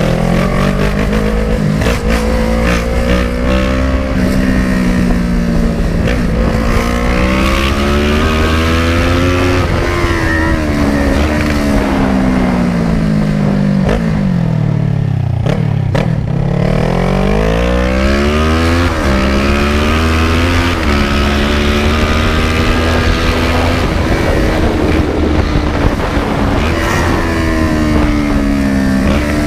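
Kawasaki ER-6n's 650 cc parallel-twin engine pulling through the gears while riding: its pitch climbs over a few seconds and drops at each shift, falls right down to a low pitch about halfway through, then climbs again.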